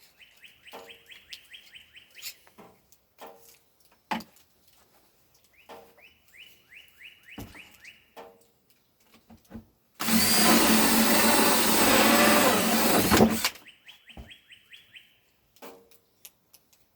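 A power drill runs for about three and a half seconds, starting about ten seconds in, boring a hole. Before and after it a bird sings three rapid trills of repeated notes, with scattered light clicks and knocks in between.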